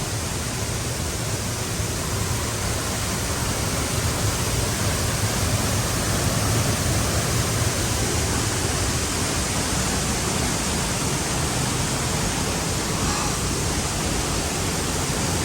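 Dry Falls waterfall pouring close by: a loud, steady rush of falling water with no break.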